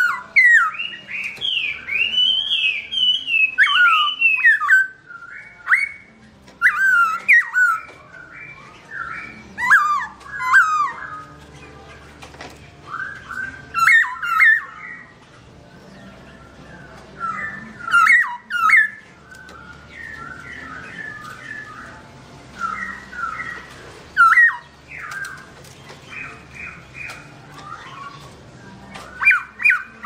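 Black-throated laughingthrush singing: a continuous run of varied, loud, melodious whistled phrases that glide up and down in pitch. Sharp high notes ring out every few seconds, and there are quieter chattering stretches between them.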